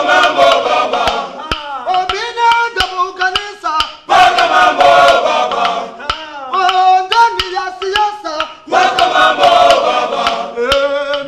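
Male choir singing a cappella, with dense full-choir passages alternating with thinner stretches led by fewer voices. Hand claps keep a steady beat about twice a second.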